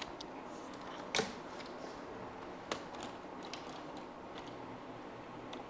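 Scattered light clicks and taps from handling gear at the desk, over faint room hiss. A sharper knock comes about a second in, and another near three seconds.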